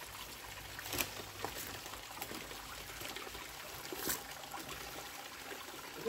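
Small waterfall trickling down a rock face into a shallow pool: a steady light splashing of water. A few brief clicks or knocks sound over it, clearest about a second in and again just after four seconds.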